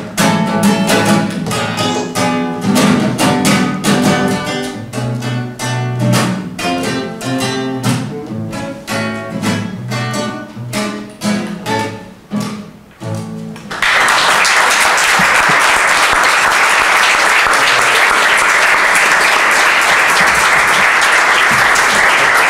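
Acoustic guitar playing a closing instrumental passage of plucked notes that thins out and ends, followed about fourteen seconds in by an audience suddenly breaking into steady applause.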